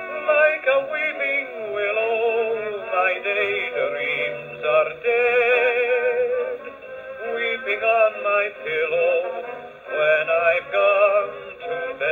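An 8-inch 1932 Eclipse 78 rpm record played acoustically on a Decca Telesmatic wind-up gramophone: a male singer with band accompaniment, holding wavering notes with vibrato. The sound is thin, with no deep bass and no high treble.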